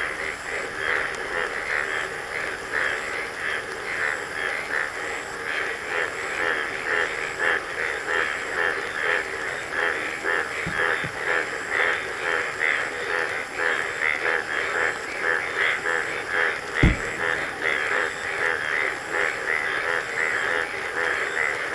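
A steady chorus of calling frogs, pulsing rapidly without a break. One sharp low thump comes about three-quarters of the way through.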